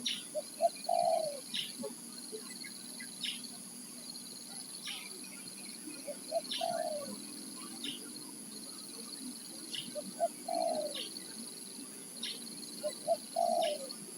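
Spotted dove (tekukur) cooing: four phrases, each two short notes followed by a longer falling coo. Short high chirps repeat about once a second between them.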